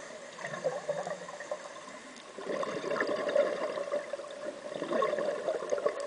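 Underwater bubbling and gurgling of scuba divers' exhaled air bubbles rising through the water, louder from about two and a half seconds in.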